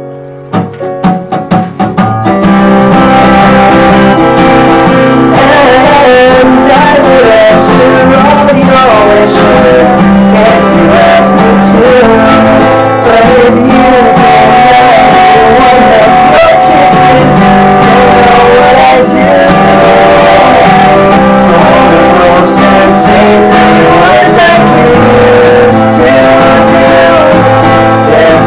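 Steel-string acoustic guitar strummed, a few separate strums at first and then a steady rhythm from about two seconds in, with a man and a woman singing a song over it.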